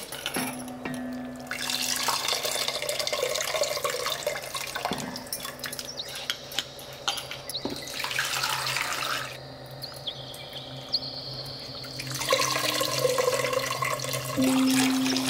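Tamarind water pouring, trickling and splashing into an aluminium pot as tamarind pulp is squeezed out by hand, easing off briefly about two-thirds through. Soft instrumental background music plays underneath.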